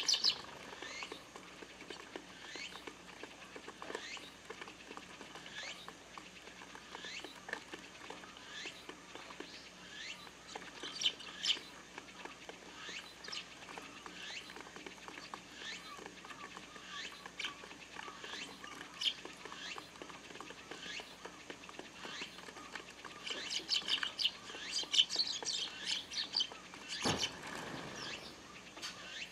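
Flock of Eurasian tree sparrows chirping while feeding, with short scattered chirps that grow busier towards the end. There is one brief thump near the end.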